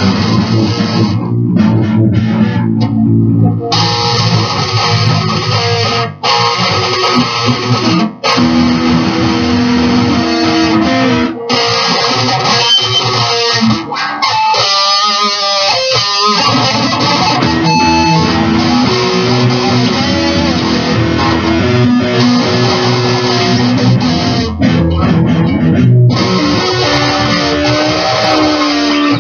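Loud live band music led by electric guitar over bass guitar, with a short warbling stretch about halfway through and a few brief breaks in the playing.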